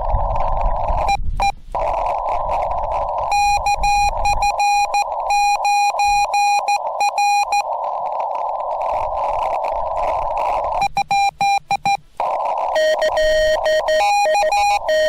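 Yaesu FT-891 transceiver sounding Morse code: runs of keyed dits and dahs on a steady pitched tone, between stretches of receiver hiss squeezed into a narrow CW filter. Near the end a second, lower-pitched Morse tone keys along with the first.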